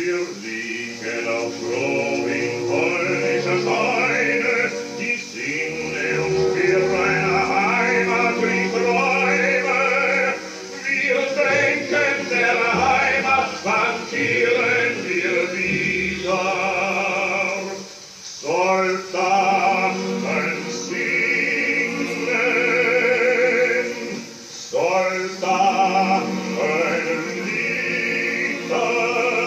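A vinyl record playing on a Saba turntable: singing with strong vibrato over an instrumental accompaniment, with brief pauses between phrases.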